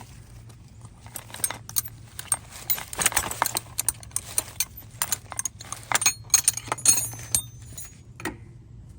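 Metal hand tools, wrenches and sockets, clinking and rattling irregularly as they are handled and sorted.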